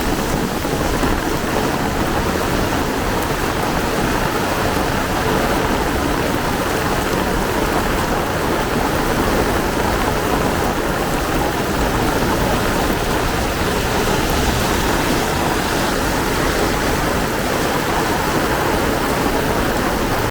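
Heavy rain pouring steadily, a dense even hiss with no breaks.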